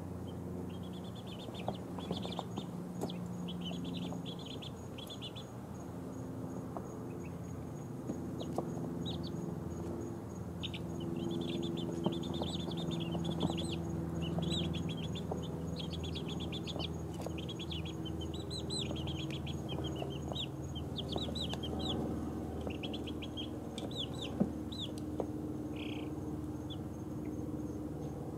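A brood of two-week-old chicks peeping, with rapid runs of short, high peeps from many birds at once over a low steady hum.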